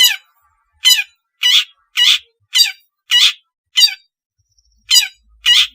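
Long-tailed shrike giving a run of short harsh calls, about nine in all at roughly two a second, each a quick falling note, with a brief pause a little after the middle.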